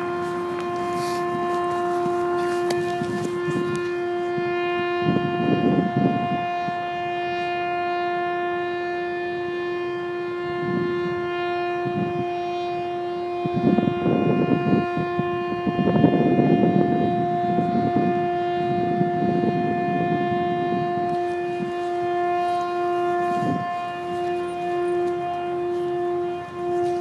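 A steady, horn-like droning tone with overtones, the 'strange sound' reported over downtown St. John's in 2012; it holds its pitch and then wavers and pulses near the end. Gusts of rushing noise rise and fall under it several times.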